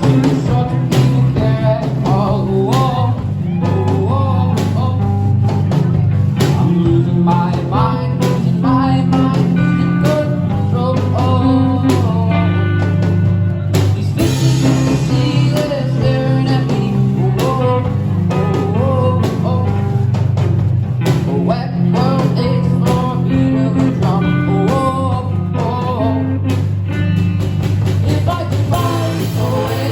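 Rock band playing a song: a sung lead melody over guitar, drums and a bass line that holds each note for a couple of seconds.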